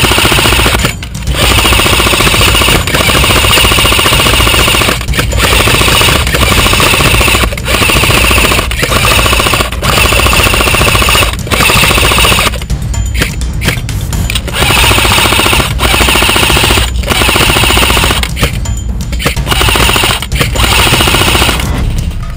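Airsoft electric gun firing on full auto close to the microphone: long bursts of rapid rattling fire, each broken off by a short pause about every second or so.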